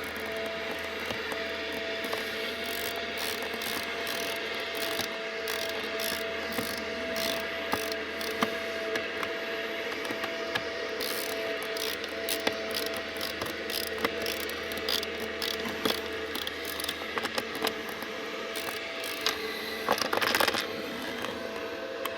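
Irregular clicks and rattles from hands-on work refitting a car seat's plastic trim panel and its fasteners, with a louder cluster of clicks near the end, over a steady hum.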